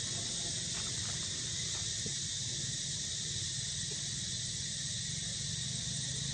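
Steady, high-pitched insect chorus buzzing without pause, over a low steady rumble.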